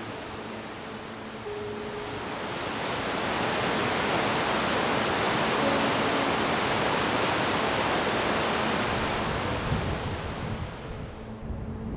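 A loud, even rushing of wind or water that swells in about two seconds in and fades away near the end, over soft background music.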